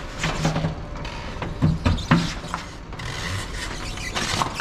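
Toyota Prius rolling slowly down the tilted bed of a flatbed tow truck, with irregular creaks, clicks and knocks from the tyre, bed and loading ramp.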